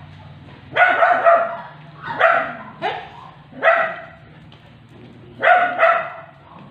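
A dog barking, several short barks in an irregular series.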